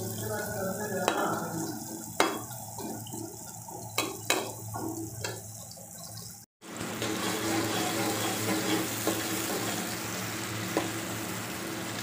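Sliced onions frying in oil in an aluminium pot, a slotted metal spoon clinking and scraping against the pot several times in the first half. After a brief break in the sound about six and a half seconds in, a steady sizzle.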